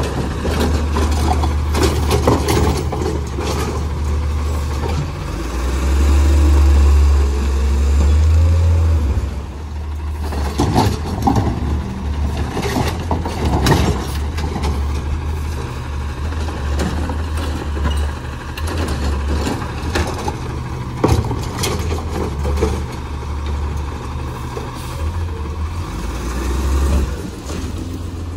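Automated side-loader garbage truck (Autocar ACX with a Heil Rapid Rail arm) running, its engine revving up for several seconds as the arm dumps a cart. Sharp clanks and knocks follow as the cart and arm come down, then the engine settles to a steadier run as the truck pulls ahead.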